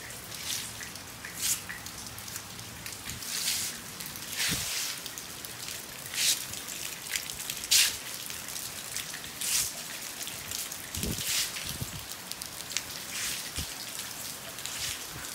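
Hurricane rain falling steadily, with short louder hissing spatters coming at irregular moments every second or two. A few dull low knocks sound partway through and near the end.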